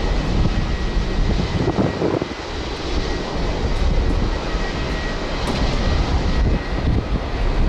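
Airbus A380 on final approach, its four turbofan engines making a steady, deep rumble with a faint high whine above it.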